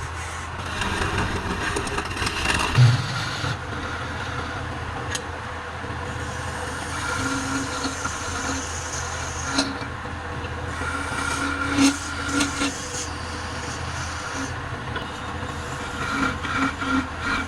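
Wood lathe running with a steady motor hum, with the hiss and scrape of a turning tool cutting the spinning wood and a few sharp clicks.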